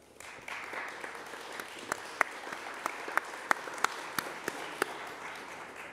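Audience applauding in a hall, with sharp single claps from one nearby clapper standing out over the crowd, dying away near the end.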